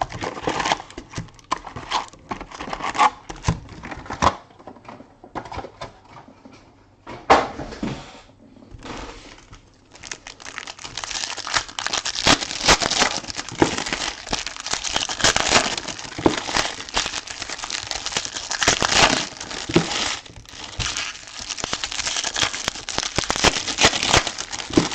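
Plastic wrapping on a trading card box crinkling and tearing as it is handled, in irregular bursts that grow denser and louder from about ten seconds in.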